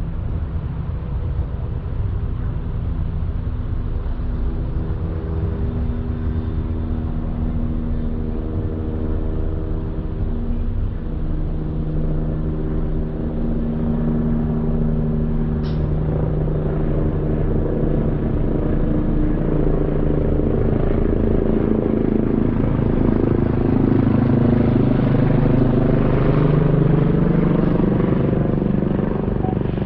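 Helicopter hovering low overhead: a steady rotor-and-engine drone whose tones slowly shift in pitch, growing louder over the last several seconds.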